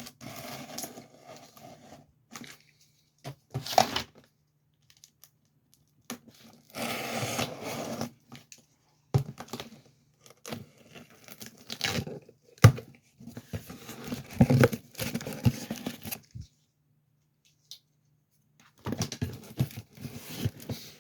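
A cardboard shipping box being opened by hand: packing tape and cardboard ripped in several tearing strokes, with crinkling and rustling of the packaging and one sharp knock partway through.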